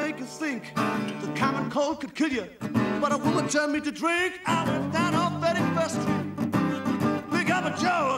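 Acoustic blues on a resonator guitar played with a bottleneck slide, notes gliding up and down between pitches, with a man singing along.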